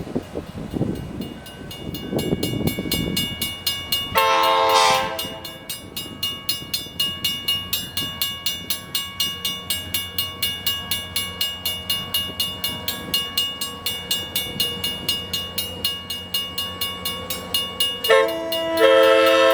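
An approaching passenger train sounds its multi-chime air horn about four seconds in and again near the end. In between, a rapid, even ringing beat of about four strokes a second goes on over the train's low rumble.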